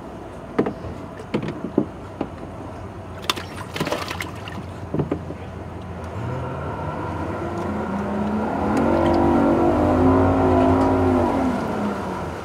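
A few sharp knocks from fish being handled in a bass boat's livewell. Then an engine comes in about halfway through, rises in pitch, runs steady and loud, and drops away near the end.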